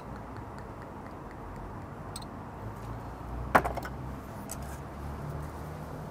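Low steady background hum with a few faint clicks, and one sharp clink about three and a half seconds in as a small glass soju shot glass is set down on the table.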